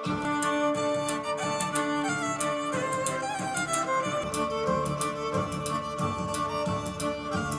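Violin-led music with percussion, played back through a portable Bluetooth speaker under test.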